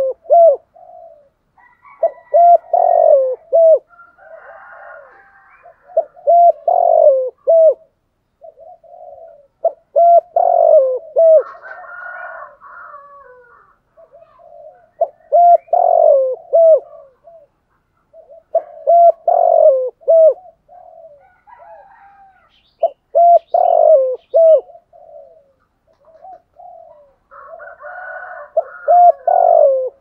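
Spotted dove cooing in the pressing 'thúc gù' style of a decoy bird, meant to provoke wild doves into answering: loud phrases of several short rising-and-falling coos, repeated about every four seconds.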